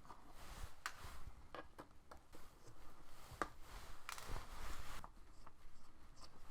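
Scattered small clicks, taps and brief scrapes of hands and a small tool working on a MacBook Pro's aluminium case while it is being opened.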